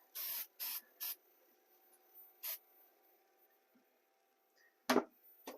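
CA glue activator being sprayed: three quick hissing spritzes within about a second, then a fourth about two seconds in. A short knock near the end.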